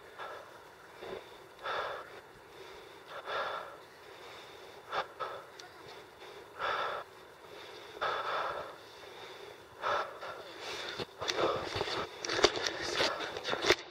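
A climber's hard, labored breathing close to the microphone, one heavy breath about every one and a half to two seconds: the sign of strain on the steep climb. Near the end, scuffing, crunching steps join in.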